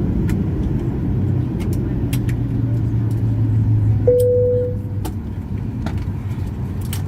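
Cabin noise of a Boeing 737-800 taxiing: a steady low hum from the CFM56-7B engines at idle, which eases off slightly about five seconds in. A single cabin chime sounds about four seconds in.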